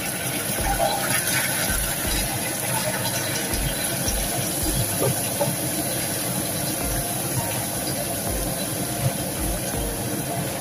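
Caramel syrup boiling hard in a saucepan after hot water is added to the melted sugar, a steady bubbling hiss, while it is stirred with a spoon. A faint low pulse repeats about once a second.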